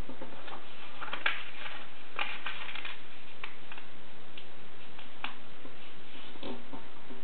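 A sheet of paper rustling and crackling as it is folded and pressed flat by hand, in short irregular crinkles, over a steady background hiss.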